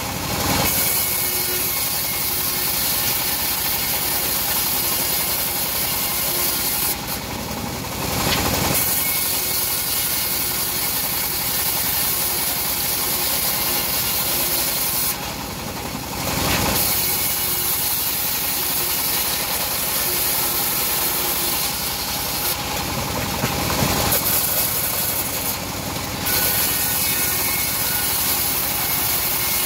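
Homemade bandsaw mill ripping teak: a loud, steady hiss of the blade cutting through the wood over the machine's running noise. The cutting hiss eases briefly three or four times between passes while the machine keeps running.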